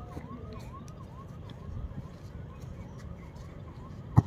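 An electronic siren yelping in quick rising-and-falling sweeps, about three a second, over a low steady rumble. A single sharp thump near the end is the loudest sound.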